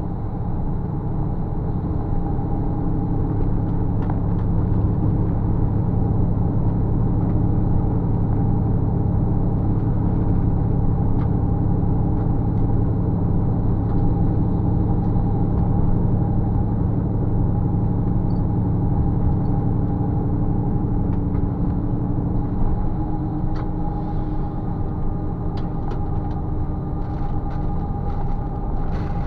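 Steady engine and tyre drone heard from inside a bus cruising along a highway, holding several even tones throughout. A few light rattles come near the end.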